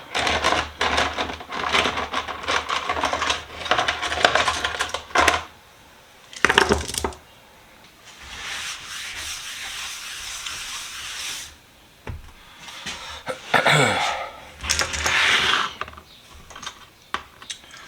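Small steel sockets clinking and scraping against each other as they are lifted out of an Evapo-Rust soak and wiped with a rag. The handling is busy for the first five seconds or so, then comes in short bouts with a soft rag-rubbing hiss between them.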